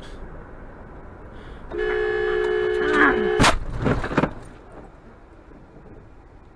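A car horn sounds steadily for about a second and a half, then a sharp crash bang with a few further knocks, heard through the dashcam inside the car.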